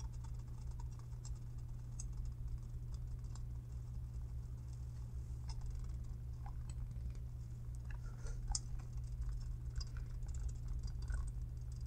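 Faint, irregular light ticking and tapping from a blown 8-inch Energy woofer, its voice coil out of the spider, as the loose cone bounces on a 14 Hz test tone and is touched by hand, over a steady low hum. The infrasonic tone itself is hardly heard: the driver is making almost no noise, just bouncing. The ticks grow busier near the end.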